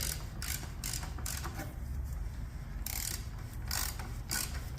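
Ratchet wrench clicking in short, uneven runs as it tightens the oil filter housing cap.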